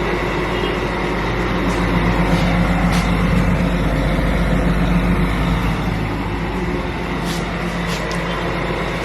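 Loud, steady engine rumble of a heavy vehicle such as a truck running close by, loud enough to interrupt speech.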